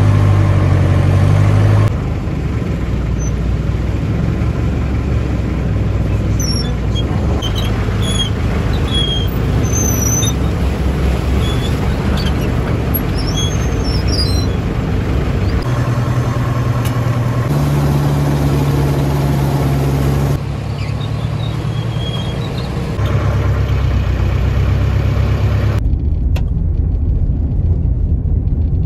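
A motor vehicle's engine running steadily with a low hum, its sound shifting abruptly several times. Short high chirps sound over it in the first half.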